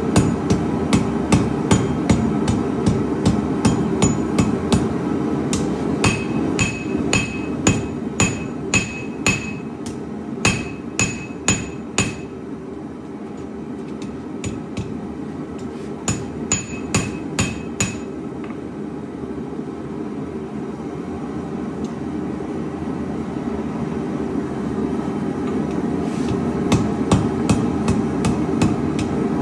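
Cross-peen hammer striking the steel tang of a knife blade: quick ringing blows about three a second. A pause and a stretch of only light taps come in the second half before full blows resume near the end. A steady low hum runs underneath.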